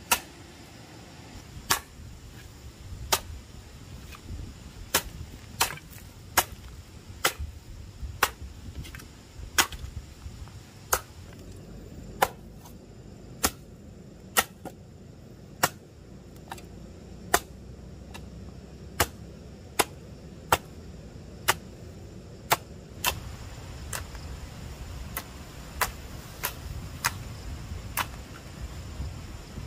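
Sharp clicks or snaps repeating at uneven intervals, about one a second, over a low steady background.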